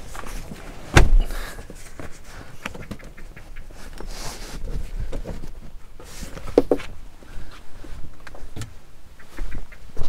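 Knocks, clunks and scrapes of luggage and the parcel shelf being shifted about in a car's boot, with one sharp bang about a second in and a short scraping rustle around the middle.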